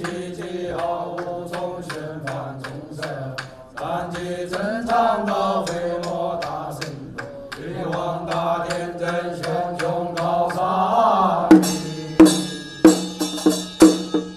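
Taoist liturgical chanting, a sung melody in long sliding phrases, kept in time by regular sharp clicks of a struck percussion instrument. About eleven seconds in, the chant gives way to louder struck percussion, about two hits a second, each one ringing on.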